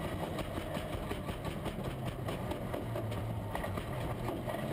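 Ferrari GT race car's engine running at racing speed, heard from the in-car camera inside the cockpit over road and wind noise. The engine note holds fairly steady, dipping slightly in the middle and picking up again.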